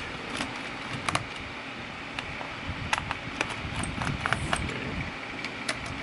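Irregular small, sharp metallic clicks and taps of a Phillips screwdriver working the bottom-cover screws of a Lenovo ThinkPad X1 Carbon 7th gen laptop as they are loosened.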